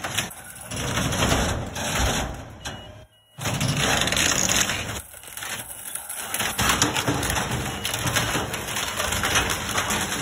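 Wooden pallets cracking and splintering as a toothed compaction wheel on a hydraulic material handler crushes them down into a steel dumpster, a dense run of snaps and crunches over the low running of the machine. The sound drops out briefly about three seconds in.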